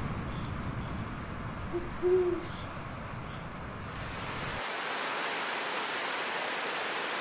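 Rushing river water with rain hiss. About two seconds in, a short, low two-note hoot sounds over it. Past the middle, the low rumble drops away and a brighter hiss of fast white water takes over.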